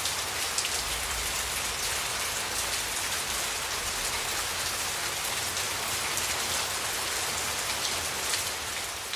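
Steady heavy rain falling, with individual drops ticking through the dense hiss.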